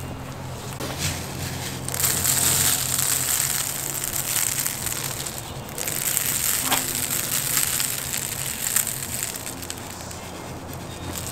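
Salt shaken from a Morton salt box onto the skin of a whole raw pig and the cardboard under it: a grainy hiss of falling grains in two long spells, starting about two seconds in, with a brief break near the middle.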